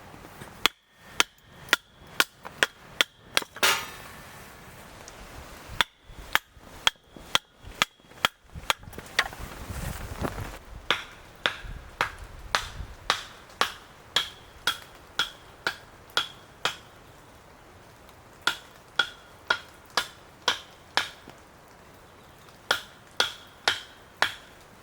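Repeated hammering, each blow followed by a short metallic ring. The blows come in five runs of roughly five to eleven strikes, with short pauses between them.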